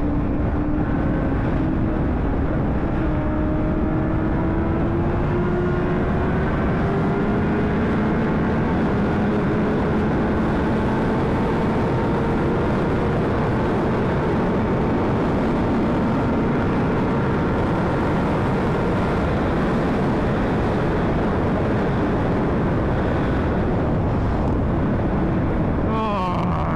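Honda CBR600RR's inline-four engine pulling hard in a high gear under heavy wind rush, its pitch rising steadily for about twelve seconds and then holding at speed. Near the end the pitch changes quickly.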